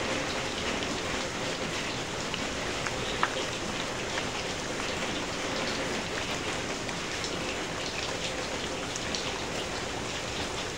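Steady rain falling in a typhoon, an even hiss with scattered drop ticks. One sharper tick comes about three seconds in.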